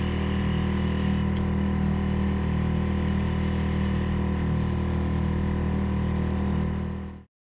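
Steady machine hum: a low drone with many steady overtones that does not change, fading out near the end.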